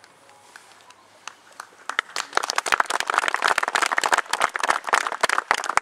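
Applause: many hands clapping, starting about two seconds in after a quiet start and carrying on densely.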